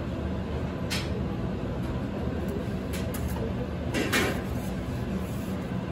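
Bundles of dry spaghetti handled and set into an aluminium tray, giving a few short rustles and knocks, the loudest about four seconds in, over a steady low rumble.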